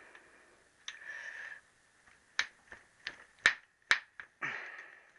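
Hand tools clicking and knocking against metal engine parts: about six sharp knocks in a row, with a short scrape or rustle before and after.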